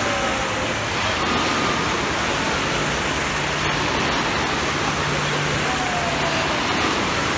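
Wave pool water rushing and breaking in a steady wash, with faint distant shouts of people in the pool.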